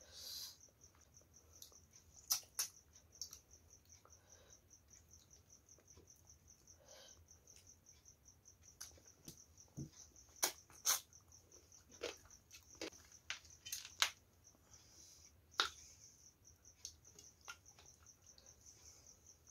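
Close-up hand-eating sounds: wet smacks and clicks of chewing and lips, heaviest in the middle of the stretch, and soft squelching as fingers mix rice and fish curry on a steel plate. A faint, rapidly pulsing high tone runs underneath.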